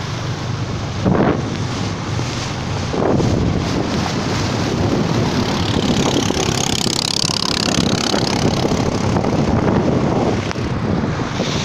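Narrow wooden motorboat's engine running steadily at speed, under heavy wind buffeting the microphone and water rushing past the hull. The hiss grows louder for a couple of seconds around the middle.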